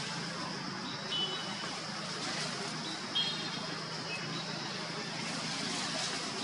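Steady outdoor background of hiss and a low hum, with a few brief high chirps about one, three and four seconds in.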